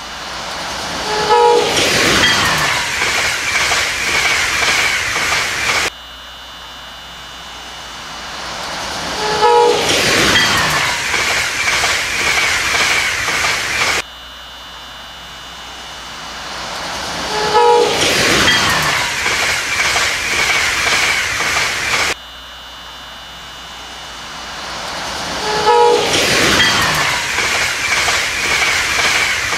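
Electric passenger train passing at speed: a brief horn chord, then a loud rush of wheels on rail with a whine falling in pitch and a rapid clickety-clack. The same pass-by of about eight seconds repeats four times, each time cut off abruptly.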